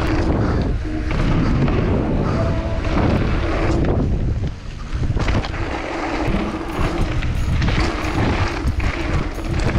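Wind buffeting an action camera's microphone as a mountain bike rides down a trail, with irregular rattles and knocks from the bike over the rough ground.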